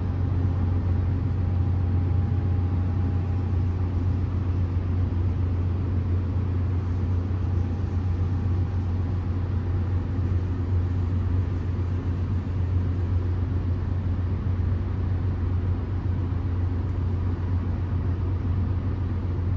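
Heavy diesel engines running with a steady, unbroken low drone.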